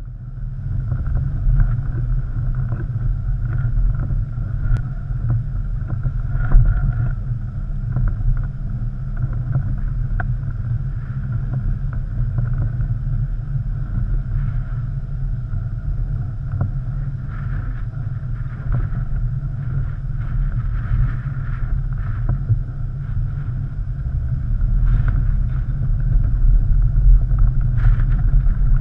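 4x4 crawling over a rocky dirt trail, heard from a hood-mounted camera: a steady low engine and drivetrain rumble mixed with wind on the microphone, with scattered knocks and clatter as the tyres go over rocks. It gets louder over the last few seconds.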